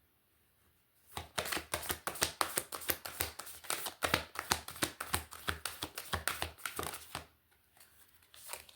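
Rune pieces clattering as they are mixed: a rapid run of sharp clacks lasting about six seconds, which stops abruptly.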